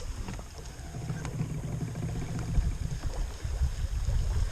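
Low, steady rumble of water and wind around a small fishing boat on a lake, with faint scattered clicks.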